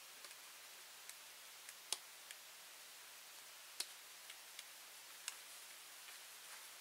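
Buckles of an enduro motorcycle boot being fastened by hand: a scatter of faint, irregular clicks and snaps. The two sharpest come about two seconds and about four seconds in.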